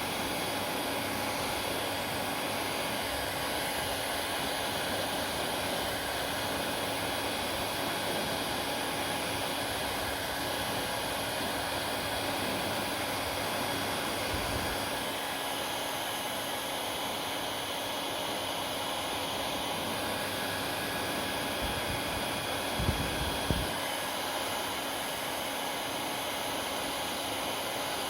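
Hair dryer blowing steadily, an even rush of air with a faint motor whine. Two brief knocks sound close together about 23 seconds in.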